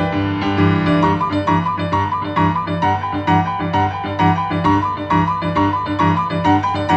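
Solo boogie-woogie piano music: a fast, busy right hand over a steady, repeating rolling bass pattern.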